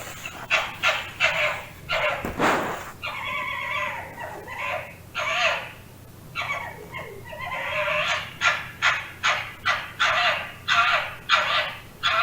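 Fox calling: a quick run of short, harsh barks, a few longer drawn-out calls, then from about two-thirds of the way in a fast, even series of barks at two to three a second.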